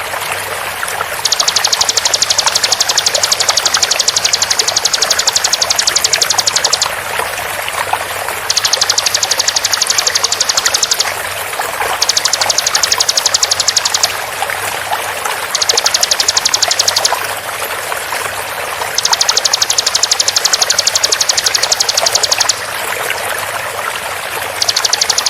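Bar-winged prinia (ciblek) giving rapid-fire 'tembakan' trills: runs of fast, evenly repeated high notes, each lasting one to five seconds with short pauses between, over the steady sound of flowing water.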